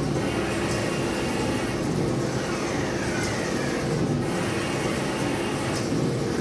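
Four-colour UV printer running: a steady machine hum with a falling motor whine about every two seconds and a few faint clicks.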